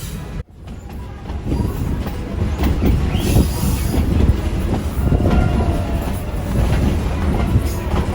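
Excursion train rolling along the track: a steady low rumble with the clatter of wheels over the rails, starting abruptly about half a second in and building over the next second.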